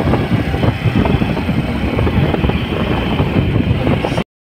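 Vehicle travel noise: a steady low rumble of engine and road with many small knocks and rattles running through it, cutting off suddenly near the end.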